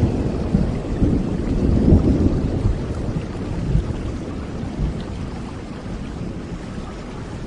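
Steady rainfall with a low rolling thunder rumble that gradually dies away.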